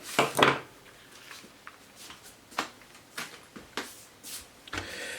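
Hands handling cables and plastic parts inside an open desktop PC case: a couple of louder knocks at the start, then scattered light clicks.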